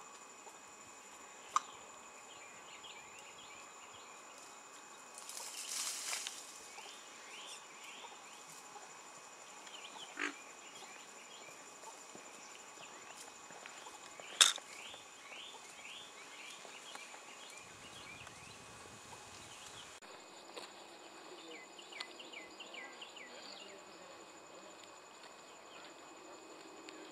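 Faint outdoor wildlife ambience: a steady high-pitched insect drone, with several runs of rapid chirping. There is a short rustle about six seconds in, and a sharp click about halfway through.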